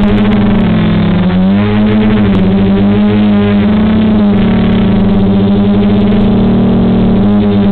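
Quadcopter with DJI 2212 920KV brushless motors and 9450 propellers, running steadily as it hovers. The motor pitch wavers up and down a few times as the motors change speed.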